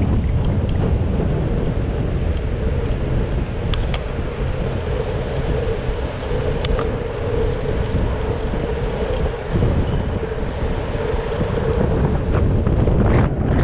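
Wind noise buffeting a bicycle-mounted GoPro's microphone while riding in city traffic, with a steady hum through the middle and a few light clicks.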